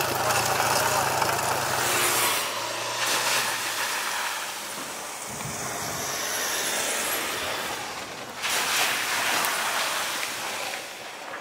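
Ford Ranger Wildtrak pickup driving: a low engine hum under a steady rushing of tyre and wind noise, the engine note fading out about four seconds in.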